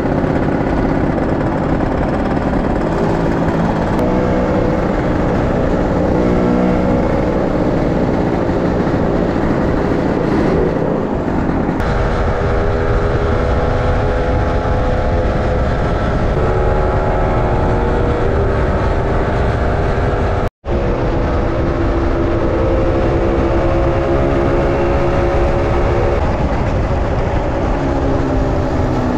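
Scooter engine running under way at road speed, its note rising and falling with throttle and gear changes, over steady wind roar on the microphone. The sound cuts out for an instant about two-thirds of the way through.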